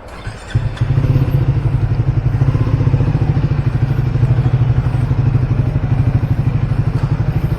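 Triumph Speed 400's single-cylinder engine running steadily, a fast, even pulsing beat that comes in suddenly about half a second in.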